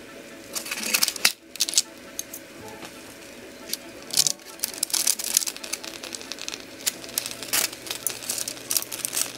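Knife and fork carving roast chicken breasts in a parchment-lined glass baking dish: irregular clicks and short scrapes of the metal utensils against the dish.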